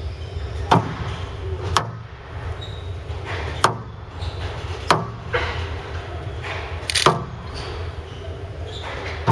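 Squash rally: the ball is struck sharply by rackets and cracks off the walls, a hit about every one to two seconds, over a steady low hum of the hall.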